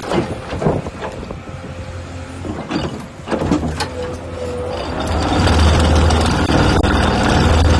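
Excavator with a vibro ripper attachment at work. The engine is running with scattered knocks and scrapes, and about five seconds in it grows into a louder, continuous heavy rumble.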